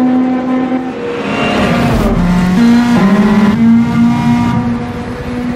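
High-revving car engine, its note dropping and rising in steps several times, as a race car's does through gear changes.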